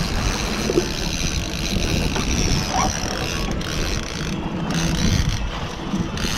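Boat's outboard motor running steadily at trolling speed, with wind buffeting the microphone.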